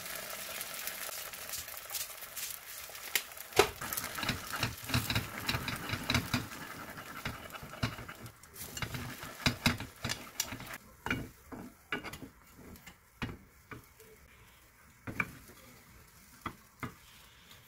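Beaten eggs sizzling in a rectangular nonstick egg-roll pan as wooden chopsticks stir and tap against the pan. The sizzle dies away about halfway through, leaving sharp clicks and scrapes of chopsticks and a spatula on the pan as the egg is rolled.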